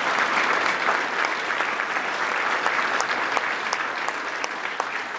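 Applause from a large crowd clapping, dense and steady, easing slightly near the end.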